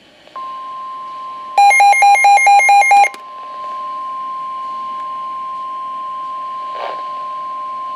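NOAA Weather Radio's steady warning alarm tone, a single held pitch, sounding from a Midland WR120B weather radio and signalling an incoming severe thunderstorm warning. For about a second and a half near the start, the radio's own alert beeps over it, much louder, at about five pulses a second.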